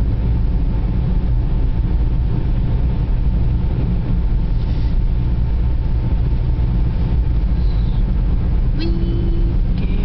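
Car driving on a snow-covered road, heard from inside the cabin: a steady, constant low rumble of tyres, engine and wind.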